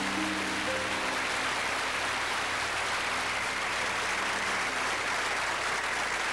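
Concert audience applauding steadily. A few low held notes from the band fade away in the first second.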